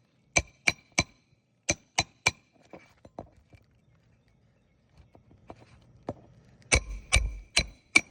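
Hammer blows on metal on a shingle roof, each a sharp strike with a short metallic ring. There are two quick runs of three about a third of a second apart, a few faint clicks, then another run of four near the end.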